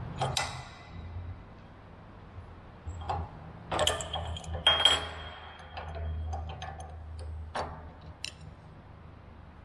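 Metal clinks and knocks from a steel bench vise being worked, its handle and a pipe slipped over it striking the vise. There are about six separate sharp strikes, the loudest around four to five seconds in, one with a short ringing tone.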